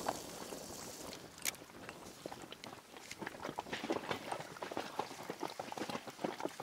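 Irregular light tapping and knocking, denser in the second half, with one sharper click about a second and a half in.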